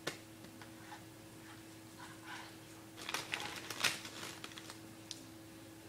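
Close eating noises from a burrito: a sharp click, then scattered crackles and clicks, with a dense, louder run of crackling about three to four and a half seconds in. A steady low hum lies underneath.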